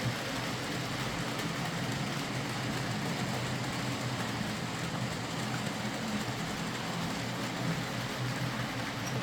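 Bachmann Class 47 OO gauge model locomotive running on track: a steady hum of the motor and gears with the wheels rolling on the rails. There is no screeching, the worm-gear bearings having been lubricated.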